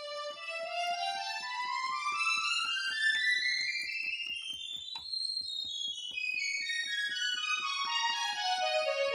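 Casio CDP-100 digital piano played as a run of notes, one key after another, climbing steadily up the keyboard to the top and then stepping back down. A faint knock of the key action comes with each note, typical of running through every key to check it after a hammer rubber repair.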